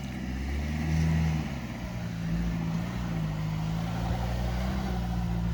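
Dacia Duster's 1.3 TCe turbocharged four-cylinder petrol engine running under load, a little louder for a moment about a second in, then holding steady.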